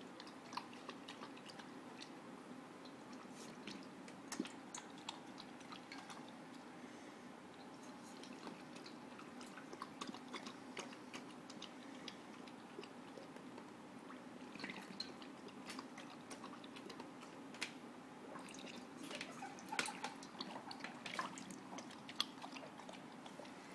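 Weimaraner lapping milky water from a stainless-steel bowl: irregular wet laps and slurps, busier about two-thirds of the way through.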